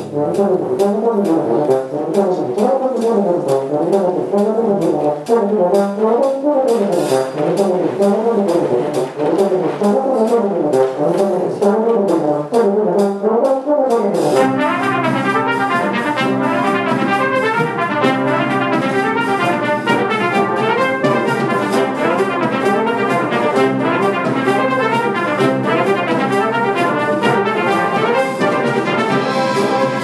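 A full brass band with percussion plays loudly in concert. For the first half the lower brass play quick rising and falling runs over sharp percussion strokes. About halfway through the band moves into held chords with strong bass notes.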